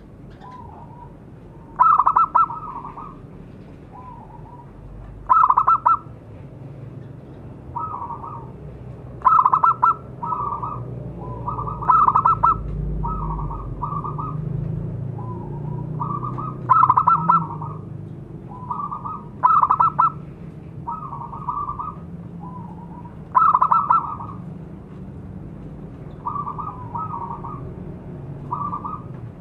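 Zebra dove (perkutut) cooing: short phrases of rapid, fluttering coo notes repeated every two to three seconds. Some phrases are loud and others softer.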